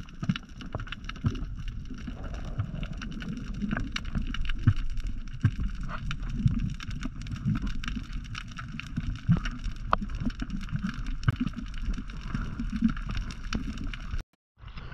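Muffled underwater sound picked up by a camera in its housing while swimming: a low, surging rush of water with many scattered sharp clicks and crackles. The sound drops out for a moment near the end.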